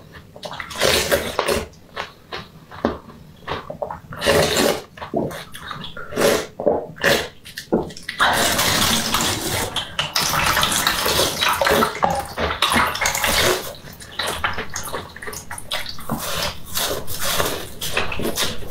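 Close-up mouth sounds of slurping and sucking on orange frozen juice ice, in short separate slurps. About halfway through comes a longer stretch of steady crackling, and near the end there are wet bites into the icy block.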